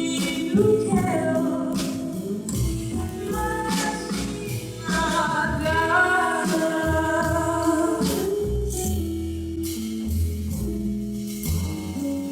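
A young girl's voice singing the closing phrase of a slow Japanese ballad, with sustained instrumental accompaniment underneath.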